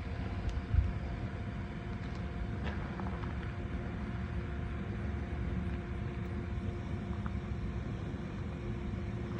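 Steady low outdoor rumble with a faint steady hum, and a single short thump about a second in.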